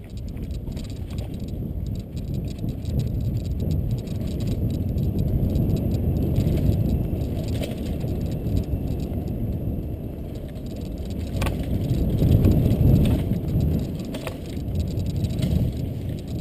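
Mountain bike ridden fast down a dirt forest trail: a steady low rumble of the ride, swelling and easing with speed, with the bike rattling and a few sharp knocks, the clearest about eleven seconds in.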